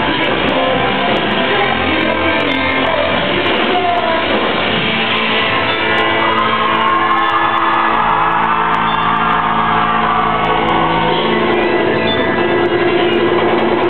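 Live band playing loud music in a concert hall, with shouted vocals over it.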